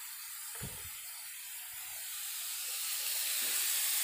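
Vegetables frying in oil in a wok: a steady hissing sizzle that grows a little louder toward the end, with a single low thump about half a second in.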